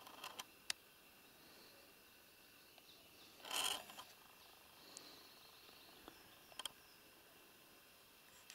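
Quiet meadow background with faint steady insect chirring and a few light clicks. About three and a half seconds in there is a short rustling noise, the loudest sound here.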